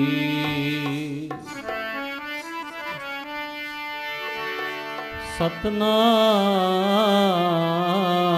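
Sikh devotional dharna music. A long, wavering sung note fades about a second in, then steady instrumental notes play for a few seconds. A short knock follows, and a new held, wavering sung note begins.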